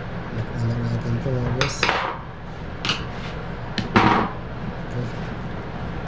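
Metal hand tools and fan-motor parts clinking and clattering against a steel workbench as an air conditioner fan motor is put back together. There are a few separate clanks, and the loudest comes about four seconds in.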